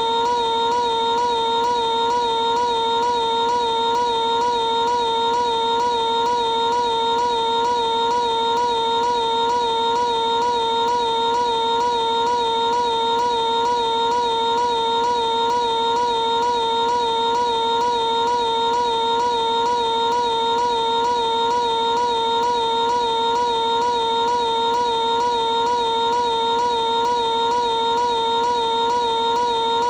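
Piglet's high-pitched cartoon voice screaming, stretched into one unbroken held tone with a quick, regular wobble and no pauses.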